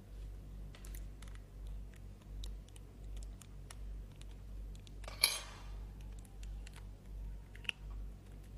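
Small clicks and taps of metal tweezers against a Samsung Galaxy Tab 3's circuit board and flex-cable connectors as they are pried up, with one louder clatter about five seconds in and a sharp click near the end. A steady low hum runs underneath.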